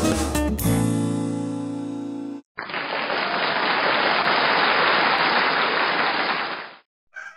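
Theme music with drums ends on a held chord. After a brief gap comes about four seconds of steady, even hiss that starts and stops abruptly.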